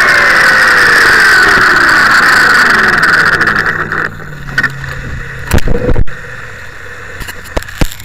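Blade 360 CFX electric RC helicopter's motor and rotor whining as they spool down after landing, the pitch falling steadily until the sound dies away about four seconds in. A few sharp knocks and thumps follow as the helicopter is picked up and handled.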